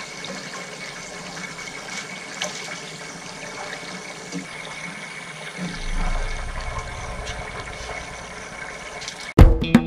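Kingfish steaks frying in hot oil in a pan, a steady sizzle with scattered pops and clicks as they are turned over with tongs. Loud drum-kit music cuts in near the end.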